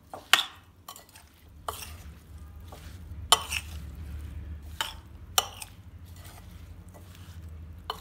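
A metal spoon stirring a creamy mayonnaise salad in a glass bowl, with several sharp clinks as the spoon knocks against the glass. A low steady hum sits underneath.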